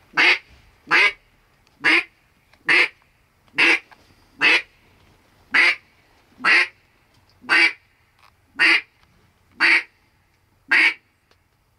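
Loud single duck quacks in a steady, even series, about one a second, twelve in a row.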